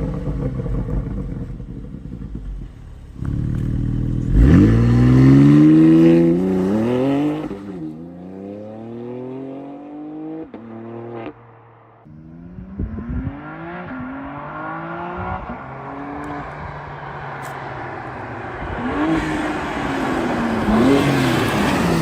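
BMW X4 M Competition's twin-turbo inline-six, with the petrol particulate filter deleted and coded for burbles in Sport Plus, being revved. The revs jump and climb steeply about four seconds in, fall away with a few sharp cracks around eleven seconds, then climb again more slowly to a loud finish near the end.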